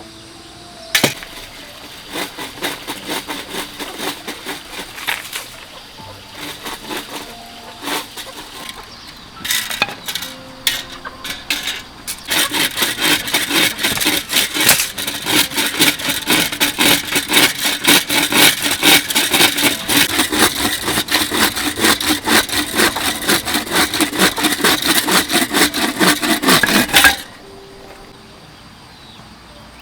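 Bamboo being cut with a handsaw: a few scattered strokes and scrapes, then a long run of rapid, even back-and-forth sawing strokes that stops abruptly near the end.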